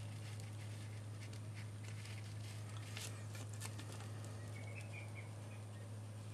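Steady low background hum, with scattered faint small clicks and taps and a few faint high chirps about five seconds in.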